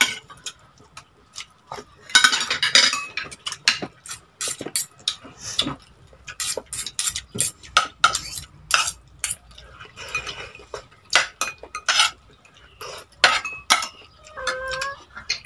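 Metal spoon and fork clinking and scraping against a plate while eating, in quick, irregular clicks.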